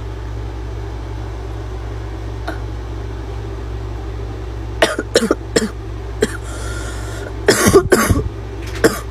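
A girl's barking cough: after a few quiet seconds, a string of short sharp coughs begins about halfway through, and the loudest, hardest coughs come a couple of seconds later. A steady low hum runs underneath.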